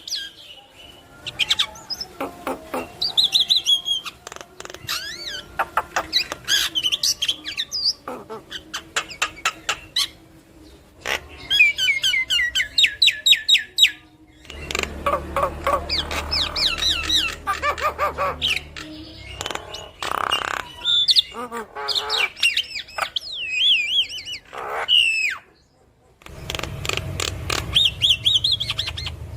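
Javan myna (jalak kebo) singing in full song: a varied, continuous stream of whistles, harsh squawks, clicks and fast chattering note runs, with a brief pause a few seconds before the end.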